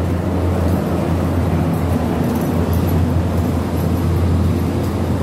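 Steady low rumble with a hiss over it, even throughout: the background noise of an underground MTR station corridor.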